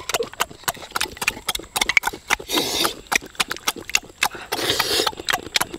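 Close-up eating sounds of a person chewing cooked snails: quick wet smacks and clicks, several a second, with a few short noisy stretches between them.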